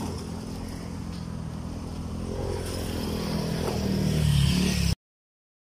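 A motor vehicle's engine running and slowly growing louder, as if approaching, then cut off suddenly near the end.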